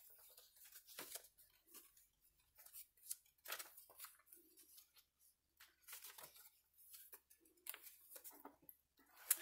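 Paper pages of a handmade junk journal being turned by hand: soft, brief paper flicks and rustles, about ten in all, coming irregularly roughly once a second.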